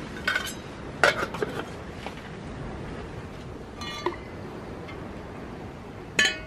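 Ceramic sake flask and cup clinking against a metal pot: a handful of light, ringing knocks, a small cluster about a second in, another about four seconds in, and a sharp one near the end, over a steady low hiss.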